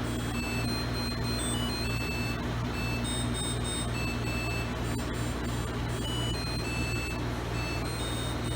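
Samsung dishwasher playing its end-of-cycle melody: a simple tune of held electronic beep tones stepping between a few pitches, over a steady low hum.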